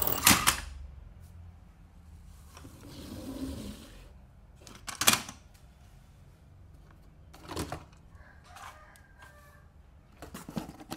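Toy cars being handled and set down on a plastic board, giving sharp plastic clicks and knocks at the start, about five seconds in, and near eight and eleven seconds. A softer scraping rustle comes about three seconds in.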